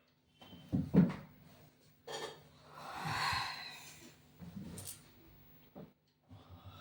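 A person yawning: a long breathy yawn that swells and fades over about a second and a half, with smaller breaths after it. A sharp thump about a second in, the loudest sound, comes before it.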